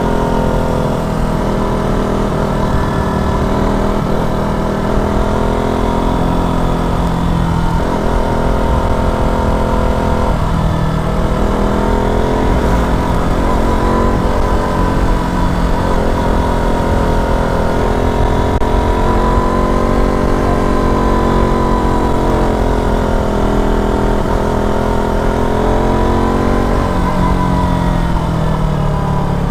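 KTM RC 200 sport bike's single-cylinder engine running under way, its note rising and falling with the throttle and dipping a few times, with wind rushing over the microphone.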